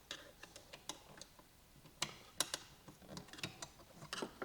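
Faint, irregular small clicks from the IWI Jakl rifle's adjustable gas knob being turned through its detent clicks by hand, with the two sharpest clicks about two seconds in.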